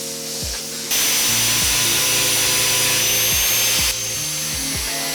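A power tool runs with a loud hiss and a high steady whine for about three seconds, starting and stopping abruptly, over background music with a steady beat.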